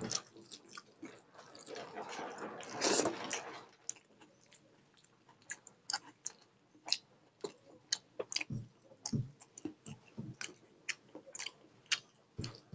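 A person eating rice and egg curry by hand from a steel plate. For the first few seconds there is a squishing, rustling sound of the hand mixing rice and curry. After that comes close-up chewing with sharp, wet mouth clicks and smacks.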